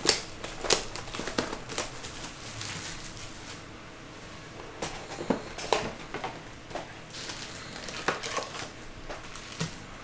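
Plastic shrink-wrap crinkling and tearing off a trading-card hobby box, then the cardboard box being opened and its foil card packs pulled out and stacked, in irregular rustles and sharp clicks.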